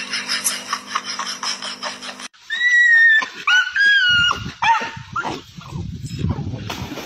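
First a rapid ticking over a steady low hum, cut off suddenly. Then dogs give loud, high-pitched yelping and whining cries that slide up and down in pitch, followed by a low rushing noise.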